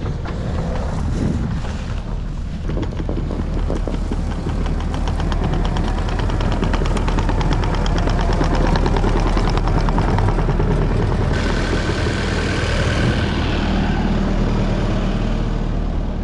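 New Holland compact track loader's diesel engine running steadily, with a fast even clatter through the middle; a higher whine joins about eleven seconds in.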